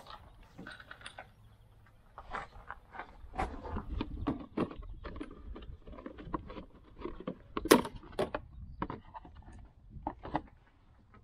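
Scattered clicks, taps and plastic rattles from hands unclipping and lifting off the plastic cover of the engine-bay fuse and relay box; the loudest, a single sharp snap, comes about two thirds of the way in.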